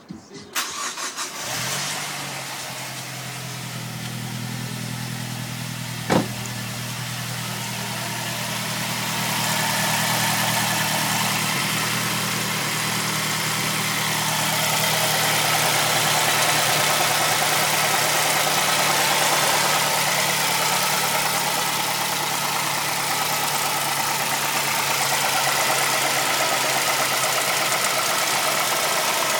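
Mazdaspeed3's 2.3-litre turbocharged four-cylinder starting up within the first second or so, then idling steadily, with one sharp click about six seconds in and the engine getting louder around nine and again around fifteen seconds. It carries a knocking noise that the owner cannot place (rod knock, bent valves, injectors, lifters or cams) and hopes is the loose timing chain.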